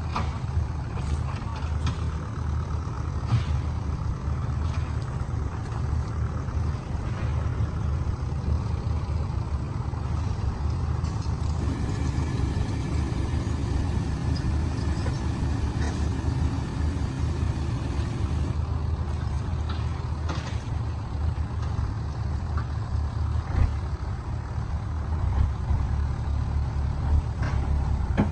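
Heavy logging truck's engine running steadily with a deep rumble, with a harsher, fuller stretch for several seconds midway and a few faint knocks.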